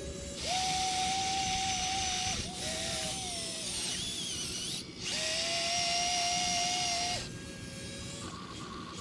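Small electric gear motors of radio-controlled construction models whining as they run in bursts: a long run of about two seconds, a short one, then another of about two seconds, each starting and stopping abruptly.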